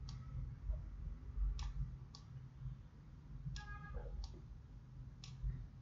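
Computer mouse clicking: about six sharp, separate clicks at an uneven pace, over a faint low hum.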